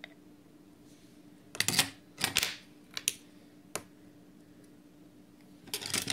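Sharp clicks and knocks of a metal vape tank and box mod being handled and set against a wooden table, in several short clusters with single clicks between them, the last cluster near the end.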